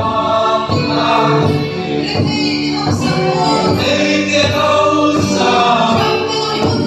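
Congregation singing a worship song together, a woman's voice leading on a microphone, over a steady drum beat.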